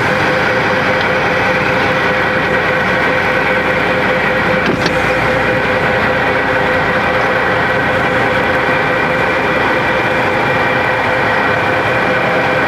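Truck engine idling steadily, heard from inside the cab, an even hum with a steady tone running through it.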